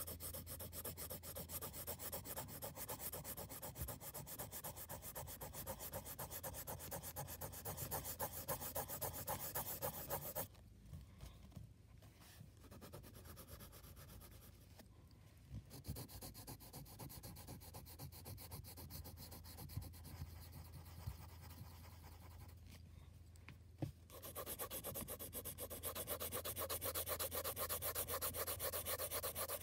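Graphite pencil shading on paper: fast back-and-forth strokes scratching steadily. The strokes grow softer for a long middle stretch, with a couple of light taps, then pick up loud and fast again for the last several seconds.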